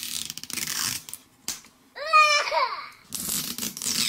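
Plastic shrink-wrap label being picked at and peeled off a plastic capsule ball, crinkling, with a click about one and a half seconds in. About two seconds in, a short high-pitched wordless vocal sound breaks in.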